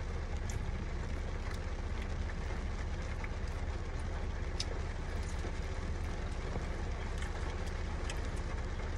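Steady low rumble and hiss inside a car cabin, with faint scattered clicks.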